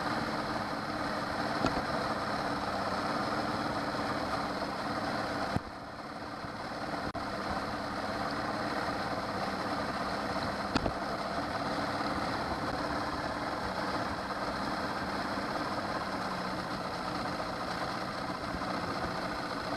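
Honda 8 hp four-stroke outboard kicker motor running steadily, pushing the boat along. About five and a half seconds in the level drops briefly and builds back over a couple of seconds.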